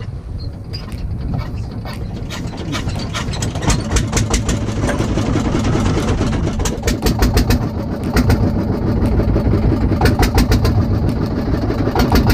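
A small engine running with rapid firing pulses, getting gradually louder.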